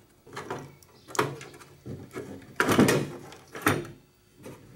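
Hand tools and fuel-pump parts knocking and clattering as they are handled and set down on a removed fuel tank: several separate sharp knocks, the loudest and longest a little under three seconds in.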